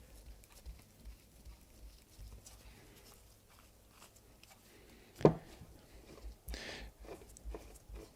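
Faint handling of tools and a small bicycle pedal on a workbench while the locknut on the pedal axle is worked loose: scattered light clicks and scrapes, with one sharp knock about five seconds in and a brief scrape shortly after.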